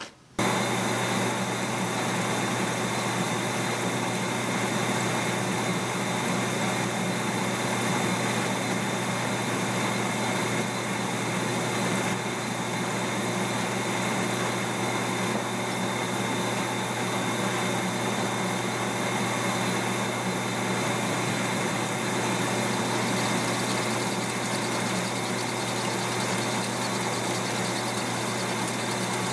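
Metal lathe running with a steel bolt spinning in its three-jaw chuck while the tool faces off the bolt head. The motor and gear hum starts suddenly and then runs steadily with a low hum and a few faint high whines.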